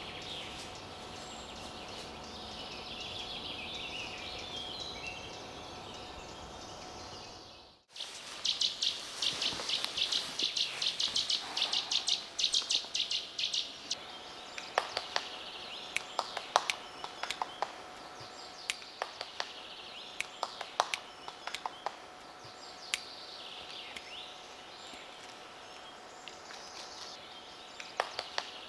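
Small songbirds chirping and singing. About eight seconds in the sound drops out briefly at an edit; after it comes a fast run of high repeated notes, then scattered sharp clicks.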